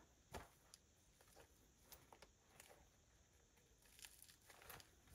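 Near silence: room tone, with one faint click about half a second in and a few faint ticks near the end.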